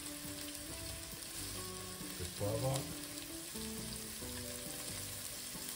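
Sliced onions frying in oil in a stainless steel pot: a steady sizzle.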